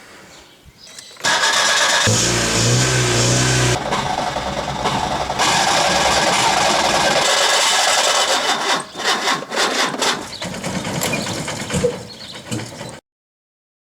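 A Skoda Favorit's four-cylinder petrol engine being cranked over by its starter motor, struggling to start. The cranking begins abruptly about a second in and cuts off suddenly near the end.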